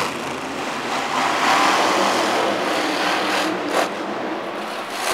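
Maximum Destruction monster truck engine revving hard through a freestyle run, swelling about one to three seconds in as the truck launches off a dirt jump. There is a single sharp bang near the end.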